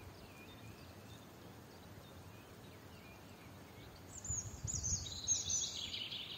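Songbirds chirping faintly, then about four seconds in one bird sings a loud phrase of quick notes falling in pitch, lasting about two seconds, over a brief low rumble.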